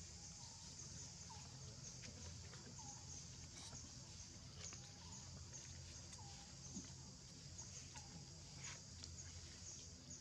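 Near silence: faint outdoor ambience, with a steady high-pitched chirring that pulses regularly and a short faint call repeating every second or two over a low rumble.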